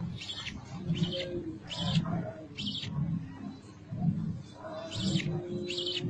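Budgerigar nestlings begging while being fed in the nest box: short, high chirps repeating about once a second over a lower, rhythmic pulsing.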